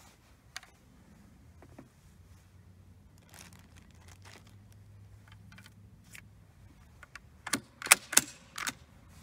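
Metal clicks and clacks from a Chassepot needle-fire rifle's bolt action being worked by hand as a cartridge is loaded: a few faint clicks, then four sharp clacks close together near the end.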